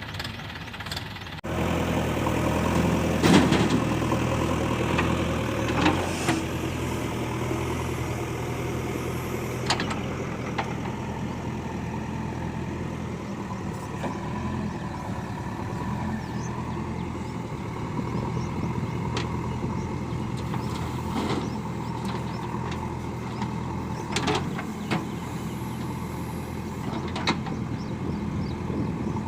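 Diesel engine of a JCB 3DX backhoe loader running steadily while it works, with a few sharp knocks and clanks scattered through.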